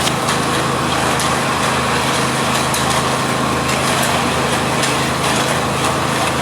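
An engine running steadily at a constant speed, with a few faint clicks over it.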